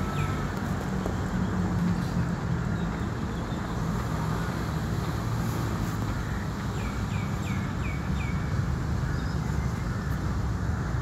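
Steady low rumble of distant city traffic, with a bird calling a quick run of about five short, falling chirps a little past the middle, and a couple more at the very start.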